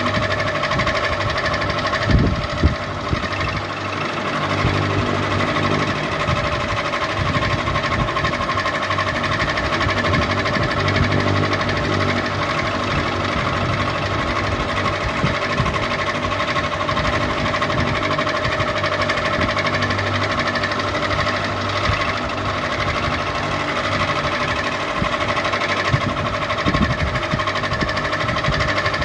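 Ceiling fan running: a steady mechanical hum with several constant whining tones over a busy rattle, with a couple of brief knocks about two seconds in and again near the end.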